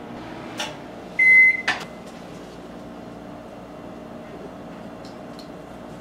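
Microwave oven heating with its turntable on, giving a steady electrical hum. About a second in there is a single short keypad beep with a click just before and just after it.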